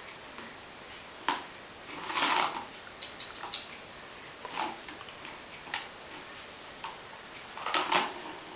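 A cat toy with a ball inside being batted at by cats: irregular clicks and short clattering rattles, the loudest about two seconds in and near the end.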